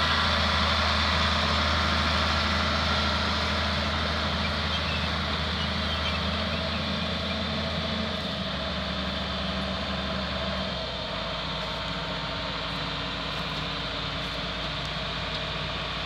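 John Deere 4240 tractor's six-cylinder diesel engine idling steadily, its note dropping lower and a little quieter about eleven seconds in.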